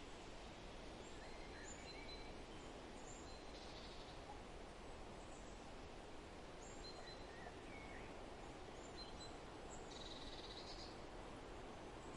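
Faint forest ambience: a steady soft hiss with scattered short, high bird chirps throughout, and two brief buzzy trills, one about four seconds in and one near ten seconds.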